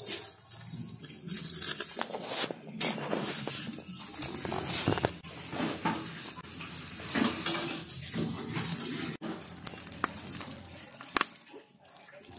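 Catfish sizzling over a charcoal fire on a wire grill: an uneven hiss with scattered crackles and clicks.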